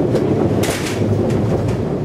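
Running noise heard from inside a JR 115 series electric train carriage at speed: a steady low rumble of wheels on rail and the running gear, with several short bursts of hiss.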